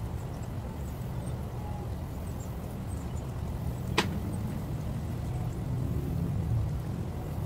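Steady low rumble of outdoor background noise, with a single sharp click about four seconds in.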